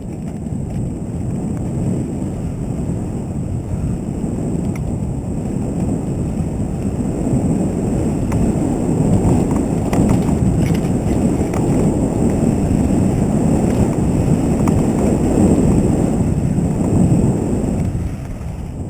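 Wind rumbling and buffeting on the microphone of a camera on a mountain bike ridden fast along a dirt trail, mixed with tyre and trail noise and a few faint clicks. It builds over the first half and eases off near the end.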